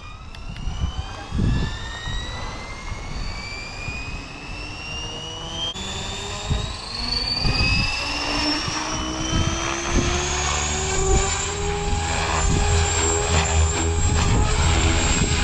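Electric RC helicopter spooling up: the brushless motor's whine rises steadily in pitch for about twelve seconds and then holds, while the rotor's low beat grows louder as the head comes up to speed.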